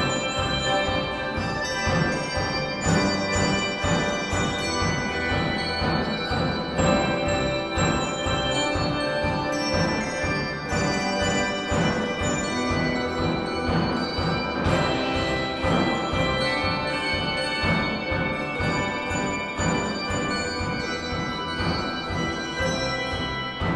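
Handbell choir playing a piece: many tuned handbells rung in chords and melody, their tones ringing on and overlapping, with fresh strikes every fraction of a second.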